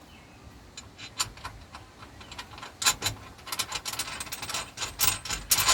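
Hand socket ratchet clicking in quick runs of strokes as a nut is tightened down on a bolt, with light metallic clinks between the runs.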